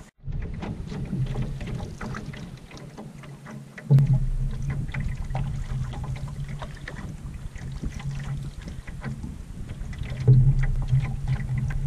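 Clipper canoe gliding over choppy lake water: many small slaps and splashes of water against the hull, over a steady low rumble that swells about four seconds in and again near the end.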